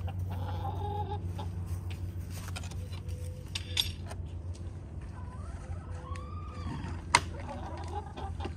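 Hens clucking and calling now and then, one longer rising-and-falling call near the end, over a steady low hum. A few sharp clicks, the loudest about seven seconds in.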